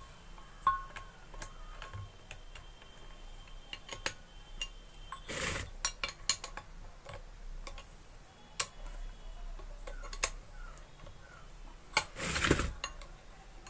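Spanner clicking and clinking irregularly on the steel nuts and bolts of a water pump's casing as they are tightened in turn, with two short scraping bursts, one about halfway through and one near the end.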